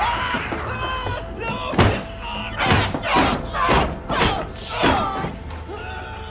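Horror-film sound design: a heavy thud a little under two seconds in, then a string of about five short, loud falling sweeps about half a second apart over a low rumble.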